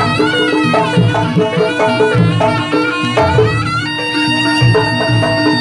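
Live Javanese Turonggo Samboyo (jaranan) music: a wavering double-reed shawm melody over drums and a repeating low beat. About four seconds in, steadier held notes come in alongside the melody.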